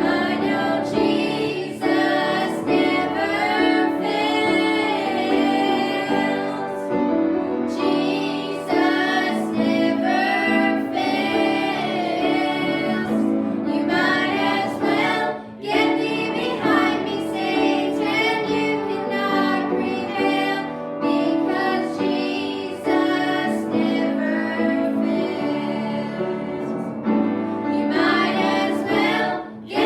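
Singing with instrumental accompaniment: a bending sung melody over sustained chords, pausing briefly about halfway through.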